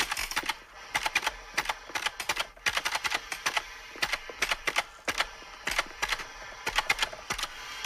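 Irregular, rapid mechanical clicking and clattering, like a typewriter, from the overheated wish machine as it breaks down.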